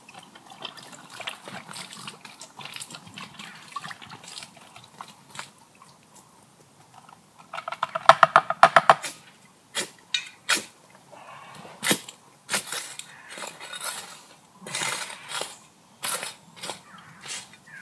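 Water glugging out of a bottle in a quick, even run for about a second and a half, about eight seconds in, poured to douse a campfire. It is followed by a string of sharp scrapes and knocks of digging in the earth of the fire pit to bury the embers.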